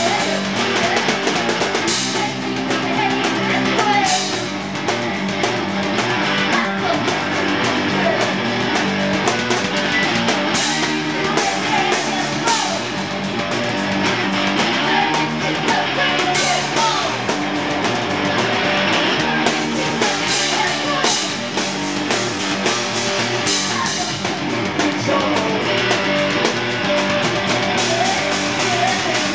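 Live rock music from a guitar-and-drums duo: electric guitar and drum kit played together, with a voice singing at times.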